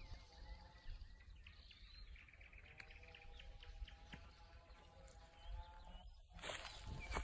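Quiet open-air ambience: a low wind rumble on the microphone and faint, scattered bird chirps. About six seconds in, loud rustling and handling noise starts as the phone is moved through the grass.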